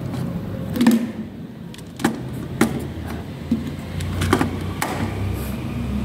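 Plastic miniature circuit breakers being unclipped from and snapped onto a metal DIN rail in a distribution board: several sharp clicks and knocks about a second apart, over a low steady hum.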